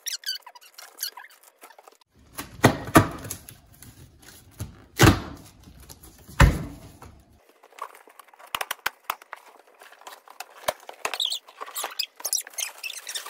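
Large cardboard box being tipped over and handled on a wooden floor: a few heavy thumps in the first half, then scraping, clicking and rustling of cardboard as its flaps are worked open.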